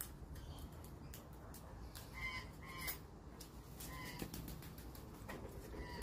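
Australian magpie giving four short, quiet calls: two close together about two seconds in, one about four seconds in and one near the end, over scattered faint clicks.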